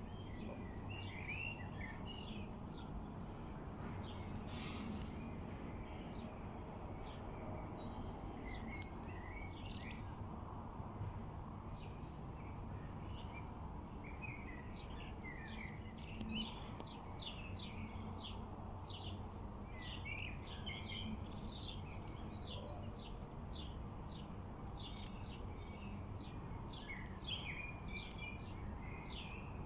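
Small birds chirping and twittering in short, quick calls that grow busier about halfway through, over a steady low background hum.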